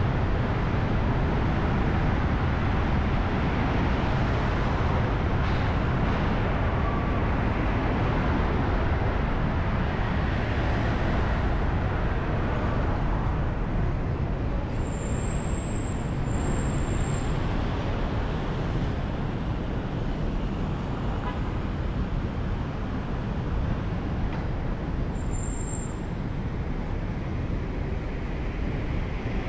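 Steady road noise of a car driving through city traffic: a low engine and tyre rumble, easing slightly about halfway through. There are faint brief high whistles about halfway through and again near the end.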